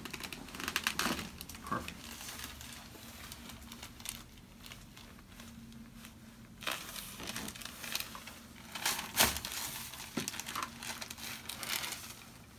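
Rustling and crinkling as a patient shifts on a chiropractic treatment table, with scattered sharp clicks and a few louder cracks or knocks. The loudest knock comes about nine seconds in.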